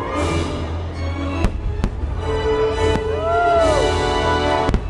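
Fireworks bursting over music played for the show, with sharp bangs about a second and a half in and again near the end.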